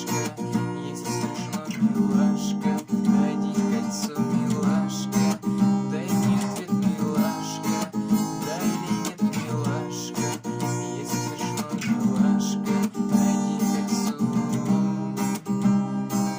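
Acoustic guitar strummed in a steady rhythm, playing the song's chords without singing.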